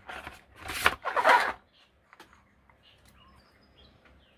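Plastic suction cup mount rubbing and scraping against its moulded packaging tray as it is pulled out and handled: two rough bursts in the first second and a half, then a single light click.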